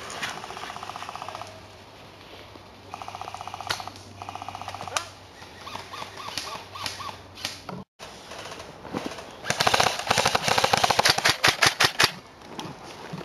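Airsoft electric guns firing in full-auto bursts: a fast, even rattle of fairly quiet fire twice in the first five seconds, then, from about nine seconds in, a loud close run of rapid sharp shots from an M4-style airsoft rifle, ending in a few single shots.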